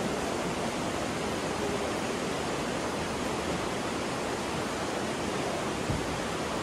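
The Aare, an alpine river, rushing through its narrow rock gorge: a steady, even rush of fast water.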